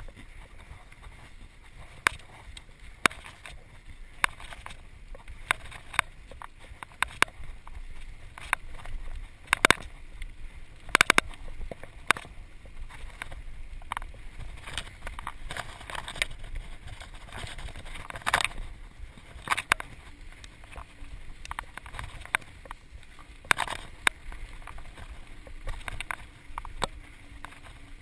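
Mountain bike riding fast down a dirt trail: a steady rumble of tyres on packed dirt and air rushing past, with frequent irregular sharp clacks and rattles from the bike jolting over bumps.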